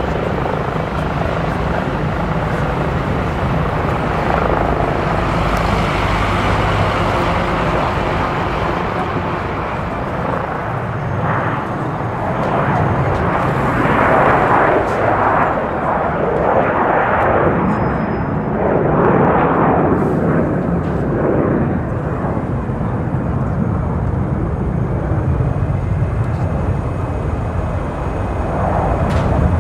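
Aircraft engine noise: a continuous loud roar that swells and becomes uneven in the middle.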